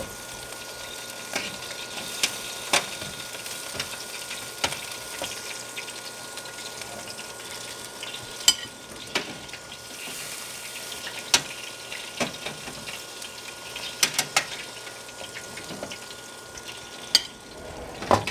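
Hot seared steaks sizzling as they are lifted out of an air fryer oven with metal tongs, with a dozen or so sharp clicks and clinks of the tongs against the oven rack and the plate.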